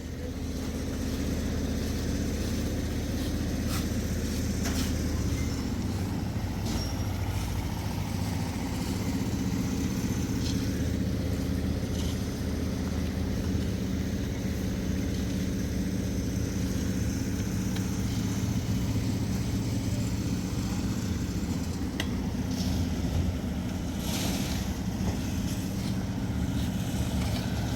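An engine running steadily at a constant speed, with a few scattered clicks and knocks over it.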